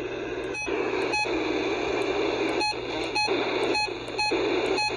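NOAA weather radio hissing with static on a channel that carries no broadcast, the station being off the air. About eight short key beeps sound as its buttons are pressed to step through the channels, and the hiss drops out briefly at each one.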